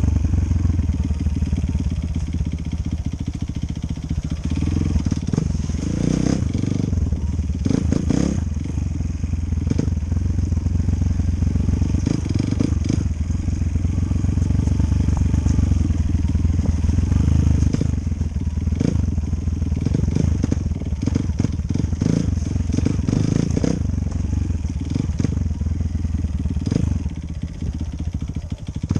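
Enduro motorcycle engine running steadily while riding, with scattered knocks and rattles.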